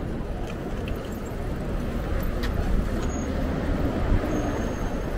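City street traffic heard from a moving bicycle: a steady low rumble of passing vehicles, with a few light clicks and a brief faint high whine about three seconds in.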